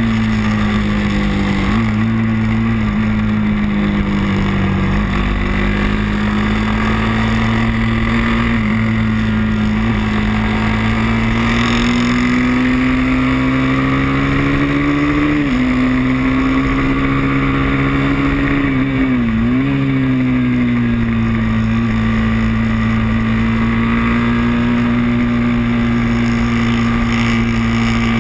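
Moto3 race motorcycle engine held at high revs, heard from its onboard camera over a steady rush of air noise. The note stays nearly level, climbs slightly past the middle, then dips sharply and picks up again about two-thirds of the way in as the throttle is briefly eased.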